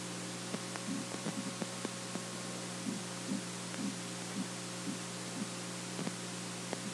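Steady electrical hum with hiss, the background noise of the recording setup, with faint scattered clicks. In the middle comes a run of soft ticks, about two a second.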